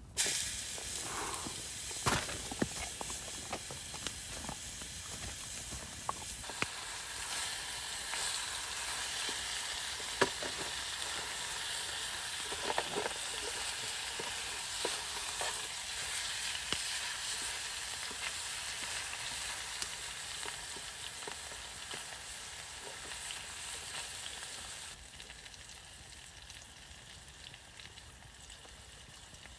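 Burger patty sizzling as it fries in olive oil in a camping pot over a campfire, a steady hiss with a few sharp clicks. The sizzle becomes quieter near the end.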